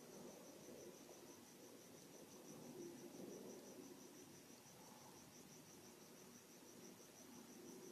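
Faint cricket chirping: a steady run of high, evenly spaced chirps, several a second, over low room noise.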